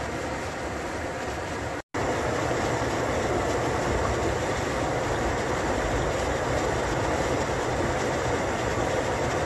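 Creek water running over a low rock ledge in a steady rush. After a brief cut about two seconds in, the same stream, swollen by rain, rushes louder.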